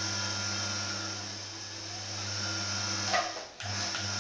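Electric gear motor on a sheet-metal beading machine, running steadily with a hum, its speed set through a variac. A knock comes about three seconds in, and just after it the motor cuts out briefly and starts again.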